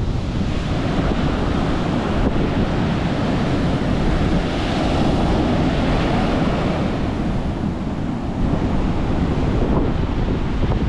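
Rough, storm-driven ocean surf breaking on the beach, with strong wind buffeting the microphone in a heavy low rumble. The surf's hiss swells and fades about halfway through.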